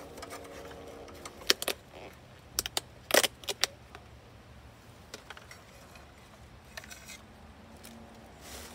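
Metal spatula clinking and scraping against a frying pan as a fried fish is lifted out: a quick run of sharp clinks in the first half, then only faint background.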